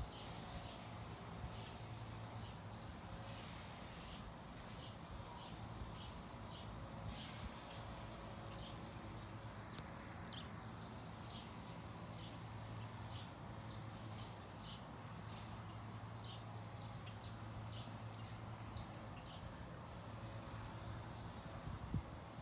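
Small birds chirping over and over in short, high, slightly falling notes, over a steady low hum.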